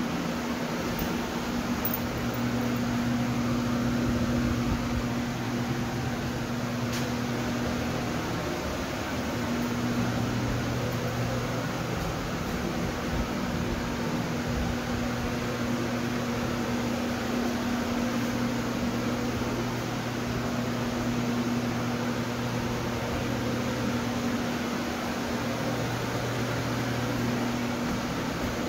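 Steady hum and airy whoosh of an electric fan or blower motor running, its low hum fading briefly twice.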